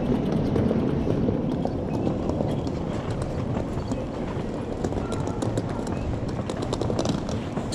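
Busy pedestrian street: general crowd chatter over a steady low rumble, with many footsteps clicking irregularly on cobblestones, thickest in the second half.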